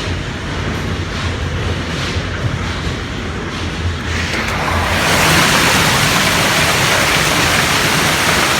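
Hailstorm: hail and heavy rain pelting down in a dense, steady hiss that swells louder and brighter about four to five seconds in.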